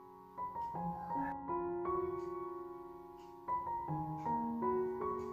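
Background piano music: a slow, gentle melody of single held notes, one after another.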